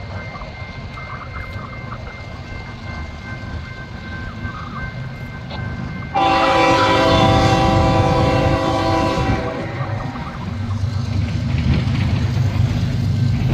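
Approaching Canadian National freight train: a low rumble, then the locomotive's air horn sounds a loud chord about six seconds in, holding for roughly three seconds before fading, while the rumble of the train grows louder.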